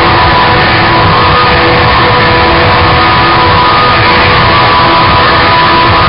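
Loud, dense, distorted rock-style music that runs without a break at a constant level.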